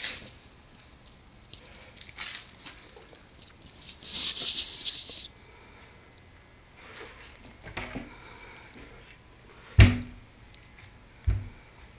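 Wooden kitchen drawer and cabinet being handled: a short scraping slide about four seconds in, then a heavy thump near the ten-second mark and a lighter knock just after, among light rustles and clicks.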